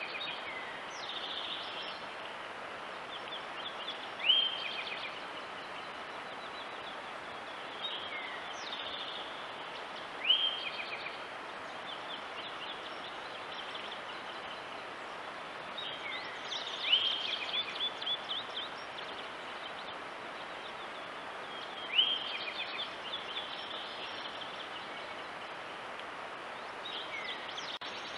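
A songbird sings the same short song about every six seconds: a sharp rising note followed by a quick run of short notes. A steady hiss lies underneath.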